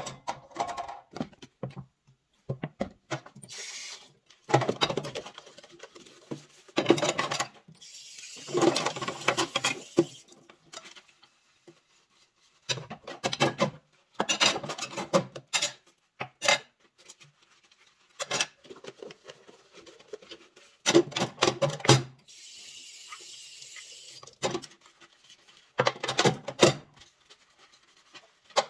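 Dishes being washed by hand in a sink: irregular clatter and knocking of pots, plastic bowls and utensils against each other and the basin, with stretches of scrubbing.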